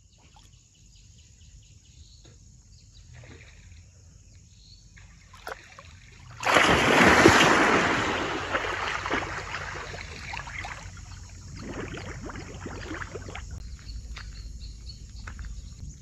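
A large, sudden splash into river water, followed by turbulent churning and sloshing that slowly dies away over several seconds.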